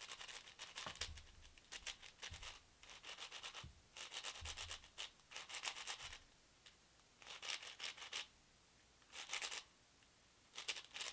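QiYi WuHua 6x6 speedcube being turned: plastic layers clicking and rubbing in quick flurries of moves, each burst lasting about a second, with short pauses between them.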